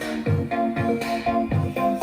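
Electronic dance music with a steady bass beat, about two beats a second, under held chords.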